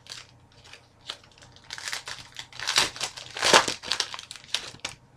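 Crinkling of plastic or foil trading-card packaging being handled, in irregular rustles with the loudest one about three and a half seconds in.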